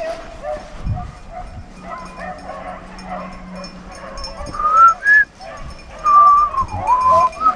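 A pack of rabbit dogs baying on a rabbit's trail, several voices overlapping, with the loudest long drawn-out cries about five seconds in and again near the end.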